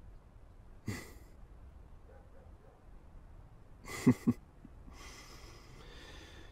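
Soft breaths and a brief chuckle: one short exhale about a second in, then a quick two-pulse laugh just after four seconds, the loudest sound here.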